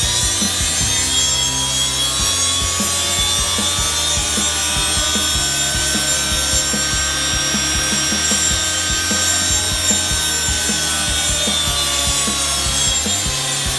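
Washing-machine universal (brushed) motor running on a cheap voltage-regulator speed controller, with a steady whine. Its pitch rises slowly as the knob turns the speed up, then falls again toward the end as the speed is turned down.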